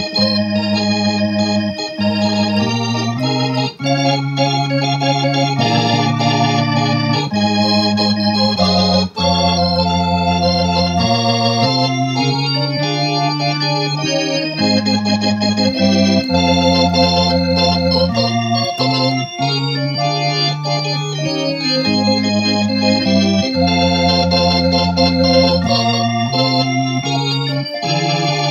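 1965 Vox Continental transistor combo organ played through a Boss RT-20 rotary-speaker simulator: sustained chords over a bass note that changes every second or two, with two brief breaks between chords about 4 and 9 seconds in.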